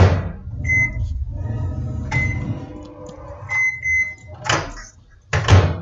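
Microwave oven door shutting with a knock, then the oven's control panel beeping several times: single short beeps about a second and two seconds in, and a longer run of beeps a little later, over a low hum. Near the end the door latch knocks twice as the door is worked by its handle.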